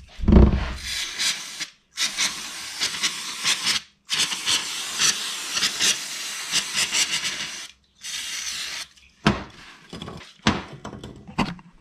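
Aerosol solvent spray hissing in several long bursts, then a few short ones near the end, washing sealant residue off a metal differential housing. A low thump comes just at the start.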